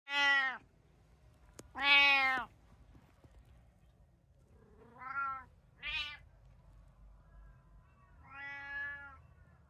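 Domestic cats meowing: five separate meows. The loudest comes about two seconds in, and the last, near the end, is longer and softer.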